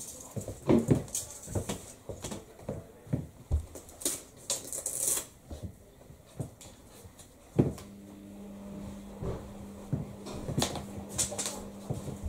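Irregular clicks, taps and rustles of a steel tape measure being handled and a person shifting about on a hard floor. About two-thirds of the way in, a sharp knock is followed by a steady low hum.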